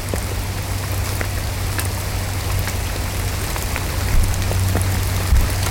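Heavy rain falling on a plastic bag over the camera: a steady hiss with scattered sharp drop ticks and a low rumble underneath.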